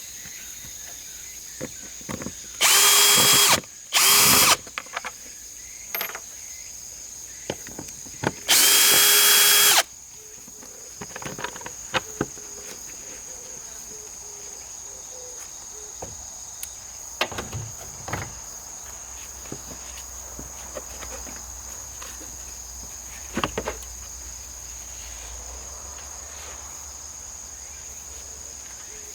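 Cordless drill/driver spinning in three short bursts: a second-long run, a brief one, then another run of just over a second. Scattered clicks and knocks follow. A steady high buzz of cicadas runs underneath.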